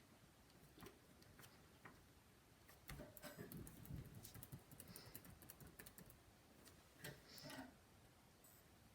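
Faint scattered clicking and tapping of computer keyboard keys, busiest in the middle stretch.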